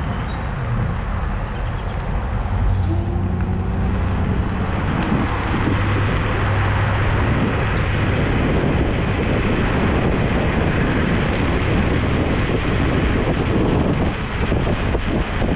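Wind rushing over the microphone with tyre and road noise from an electric scooter riding at speed, a steady rushing noise.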